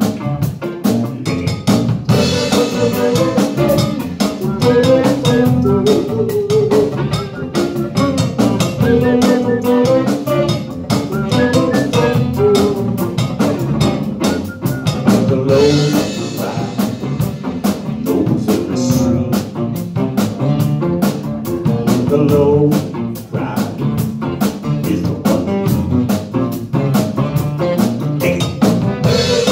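Live band playing a song: strummed acoustic guitar and electric guitar over a drum kit keeping a steady beat.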